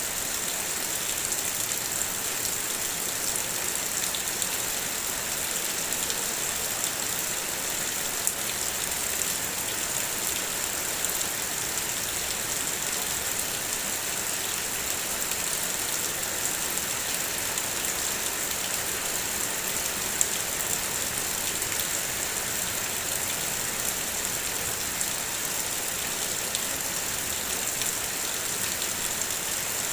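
Heavy rain falling steadily: an even hiss with scattered drop ticks.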